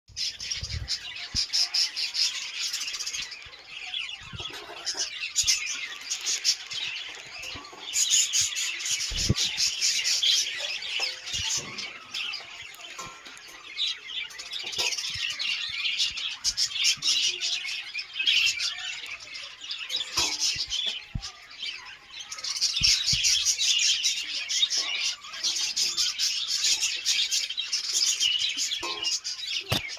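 A flock of budgerigars chattering: many birds chirping and warbling at once in dense, rapid overlapping calls, swelling louder and easing off by turns, with a few soft thumps.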